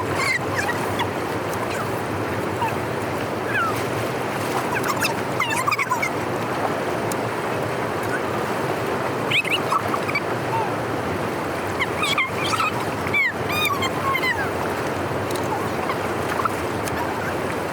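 Steady rush of flowing water, with short, sliding bird calls heard now and then over it and several close together about twelve seconds in.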